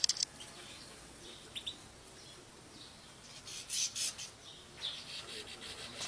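European goldfinches twittering in short, high bursts, sparse at first and busiest about four seconds in.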